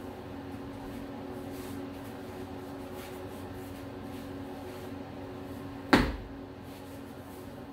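Steady low room hum, then about six seconds in a single sharp thump, the loudest sound, made during freestyle martial-arts practice.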